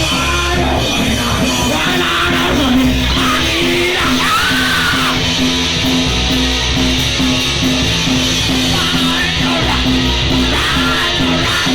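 Punk rock band playing live at full volume: distorted electric guitars over a driving band, with yelled vocals.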